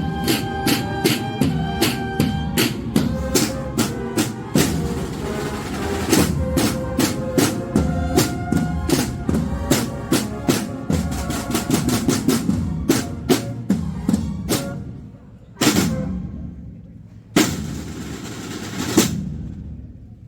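The drum section of a Spanish processional band (snare drums and bass drum) playing a march: fast snare patterns and rolls over steady bass drum strokes. Near the end it breaks into three separate heavy accented hits, each with a long ringing tail.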